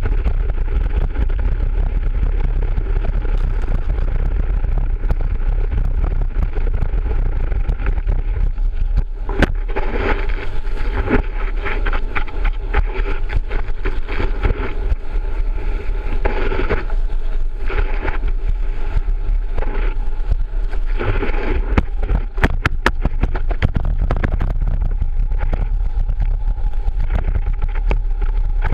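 Water ski planing across the water, recorded from a camera mounted on the ski: a steady heavy low rumble with hissing surges of spray against the ski. A few sharp knocks about a third of the way in and again past the two-thirds mark.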